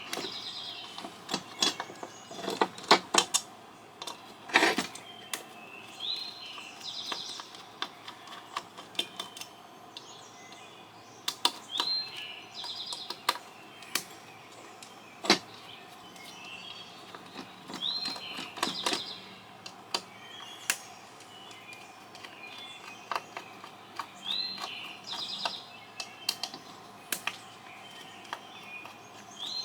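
Scattered sharp metallic clicks and taps from hand work on a satellite LNBF's aluminium housing and its small screws, loudest in a cluster about three to five seconds in. Behind them a bird repeats a short song phrase, a rising note and then a trill, about every six seconds.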